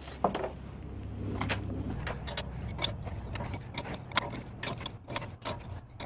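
Hand wrenches clicking and scraping on the outer tie rod end's stud and nut: an adjustable wrench turns the nut while a 10 mm wrench holds the stud, which otherwise spins with the nut. Scattered light metal clicks, one sharper one just after the start, over a low steady hum.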